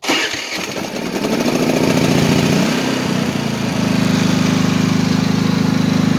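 Predator 3500 inverter generator's single-cylinder engine starting on its electric starter, catching within about a second and running. A little past halfway it steps up to a higher, steady speed.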